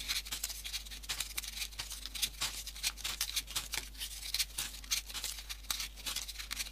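Folded paper triangle modules of 3D origami being slotted into place by hand: irregular crisp paper rustles and small clicks, several a second, as the pieces are pushed together and the model is turned.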